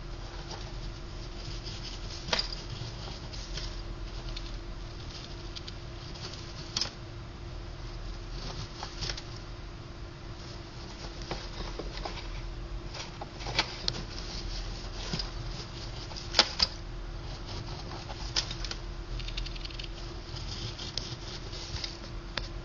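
Pet gerbil scrabbling and nibbling at a piece of orange: irregular small clicks and scratches with a few sharper taps, over a steady hum.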